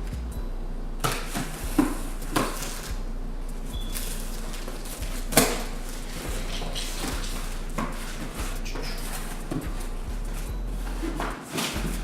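Handling noise from opening a cardboard sneaker box: scattered knocks, scrapes and rustles, over a low steady hum.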